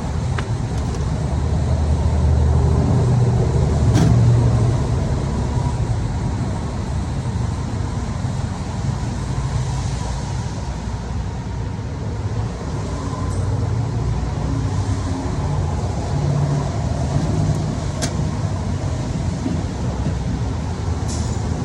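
Steady low rumble of a motor vehicle, with a few sharp clicks, the clearest about four seconds in and near the end.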